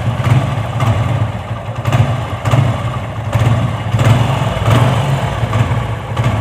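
TVS Apache single-cylinder motorcycle engine idling steadily after a home rebuild. It runs without the rattling 'badbad' noise, which the owner cured by replacing a 6001 clutch bearing.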